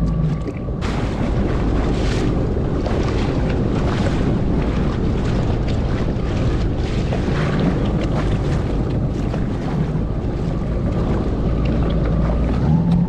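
Jet ski running slowly over open sea, its engine a steady low hum under wind buffeting the microphone and water splashing against the hull. The wind and water noise swells a little under a second in and then holds.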